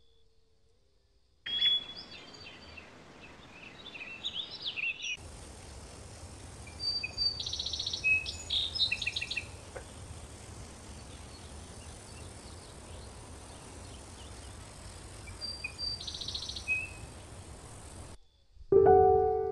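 Outdoor countryside ambience: birds chirping and trilling in short bursts over a steady hiss with a low rumble, starting about a second and a half in. The ambience cuts off shortly before the end and piano music begins.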